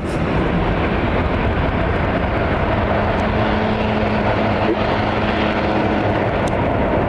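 Airplane engines running loud and steady, a dense rushing noise with a faint low hum held through the middle seconds.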